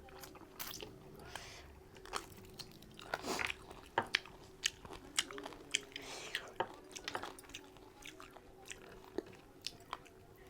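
Close-miked chewing, biting and wet lip-smacking of a person eating mutton curry, with irregular sharp clicks and smacks.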